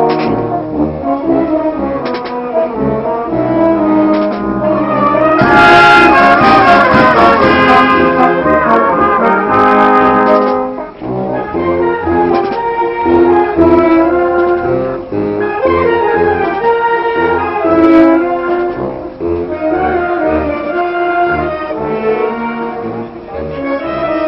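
Marching wind band playing a tune, with brass and saxophones carrying held notes. It gets louder from about six to ten seconds in, with sharp percussive hits over the playing.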